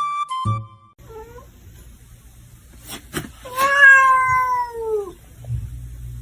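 A domestic cat gives a short faint mew, then one long loud meow that slowly falls in pitch. A couple of clicks come just before the long meow. The first second holds the last notes of a music track, and a steady low hum comes in near the end.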